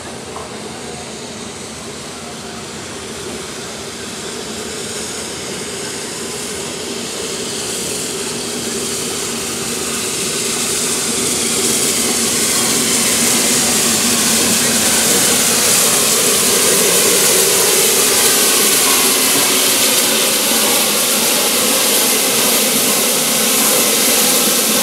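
Peppercorn A1 Pacific steam locomotive 60163 Tornado drawing into the station, its sound growing louder over about the first twelve seconds and then holding as a steady loud hiss and rumble as it comes alongside.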